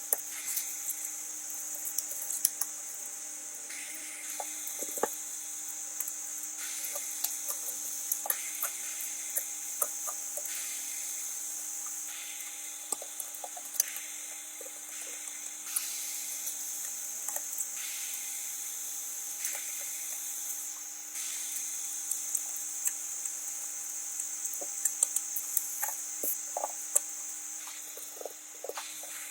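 Small repair tools clicking, tapping and scraping on a phone during back-glass repair: many short sharp taps scattered irregularly over a steady high hiss.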